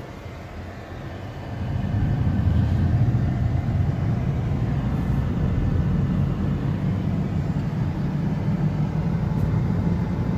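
Hyundai Santa Fe 2.2 CRDi diesel on a test drive: a steady low engine and road rumble, growing louder about two seconds in and then holding. The car is running normally after its starting fault was repaired.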